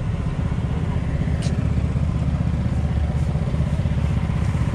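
A vehicle engine running at idle: a steady low rumble, with a short sharp click about a second and a half in.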